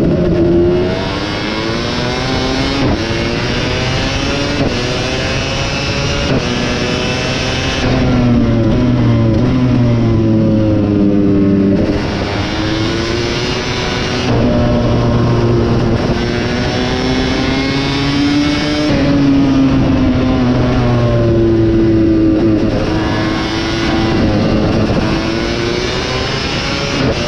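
KTM 250 SX two-stroke motocross engine racing under hard throttle, its pitch climbing and then dropping again and again as it revs and shifts or backs off.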